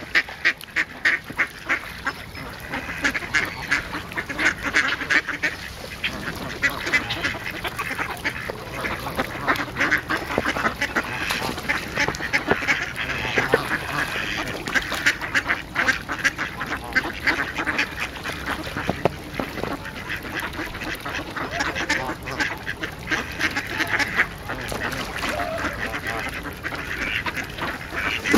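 A flock of mallards quacking and chattering over one another without a break, mixed with calls from Canada geese.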